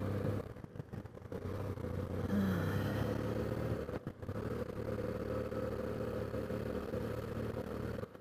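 BMW F800GS parallel-twin engine running at low speed as the motorcycle rolls slowly along, a steady low engine hum.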